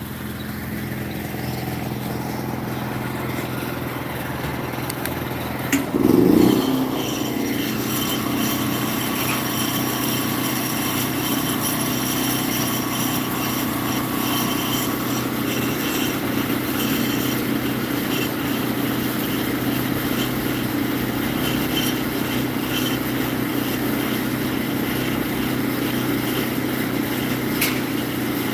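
An engine running steadily, with one brief louder surge about six seconds in.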